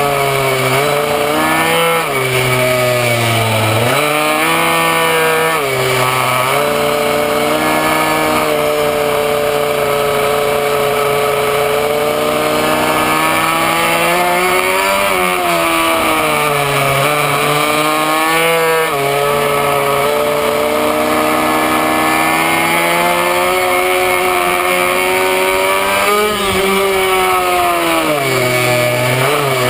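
Minimoto's small two-stroke engine at high revs, heard on board at racing speed. Its pitch drops several times as the rider backs off for corners and climbs again on the straights.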